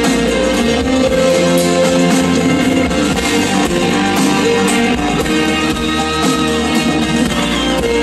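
Rock band playing live through a stage PA: electric guitar, bass, drums and keyboards in an instrumental passage without vocals.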